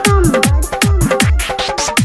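Instrumental intro of a Bhojpuri devotional song: a keyboard-synth melody with sliding, bending notes over a fast electronic drum beat with deep kicks, about three a second.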